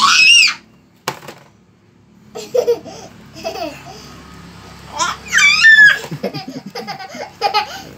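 Shrill, high-pitched squealing screams from a baby copying an older sibling: a short one at the start and a longer one about five seconds in, with babbling and giggly sounds between.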